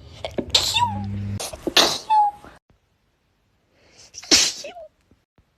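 A person sneezing three times in quick succession. Each sneeze is a sharp burst ending in a short, high-pitched vocal squeak, the first two about a second and a half apart and the third after a pause of about two seconds.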